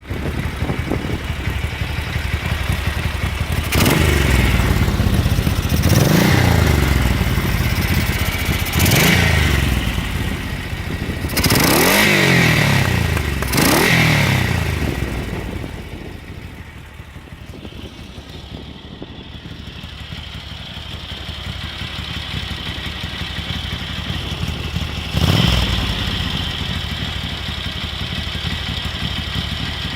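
Ducati 900SS bevel-drive 864 cc V-twin running through unused NOS Conti exhausts. It is blipped five times in quick succession, each rev falling back, then settles into a quieter idle. It is blipped once more near the end and returns to idle.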